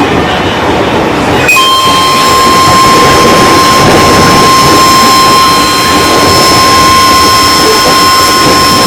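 JR 205 series electric commuter train running, with a steady high-pitched whine that starts suddenly about one and a half seconds in and holds at one pitch over the running noise. This is the strange sound from the train that its rider cannot explain.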